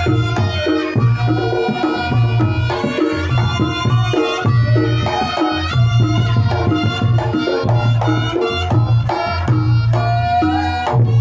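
Reog Ponorogo music: a slompret, the Javanese double-reed shawm, plays a shifting melody over kendang hand drums and deep, regular beats.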